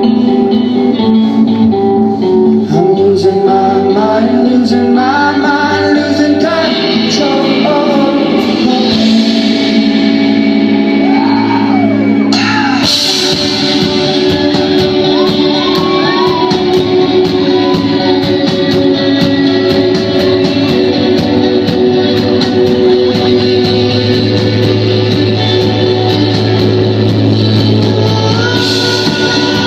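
Live rock band playing, with a lead vocal sung over guitars.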